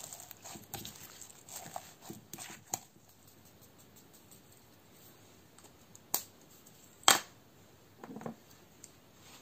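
Glittery slime squished and pressed by hand, giving a quick run of small sticky crackles and pops for the first few seconds. Later come two sharp clicks, the second about seven seconds in and the loudest sound, then a brief soft rustle.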